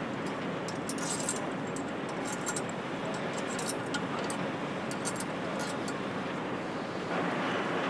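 Light metallic clinks of steel bolts being set into the bolt holes of an aluminium camshaft carrier on a cylinder head, many small taps over the first five seconds. Under them runs a steady factory hum, which grows louder near the end.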